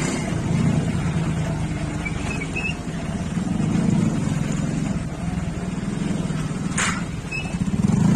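Small motorcycle engine running at riding speed, heard from on the bike, its note swelling and easing with the throttle. A single sharp click sounds about seven seconds in.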